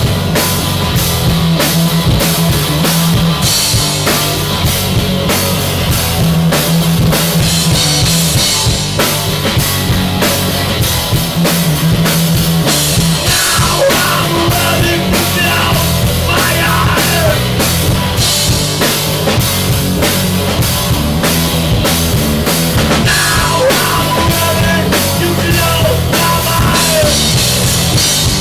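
Rock music: a steady, loud drum-kit beat under a repeating low riff. About halfway through, higher melodic lines that bend in pitch join in.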